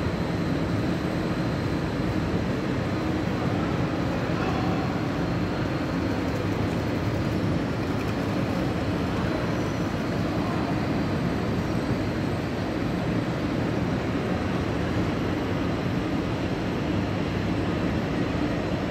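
Steady low hum and rumble inside a large railway station train shed, with electric regional trains standing at the platforms; no single event stands out.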